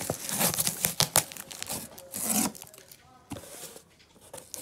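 Packing tape being pulled and torn off a cardboard shipping box, with the cardboard flaps rustling and scraping. The tearing comes in short bursts with a few sharp snaps, and dies down in the second half.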